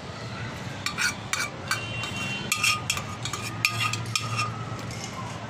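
Metal spoon scraping and tapping against the inside of an aluminium pot, a quick irregular run of scrapes and clinks with a brief metallic ring, as food is scraped out of the pot. The clinking stops about a second before the end.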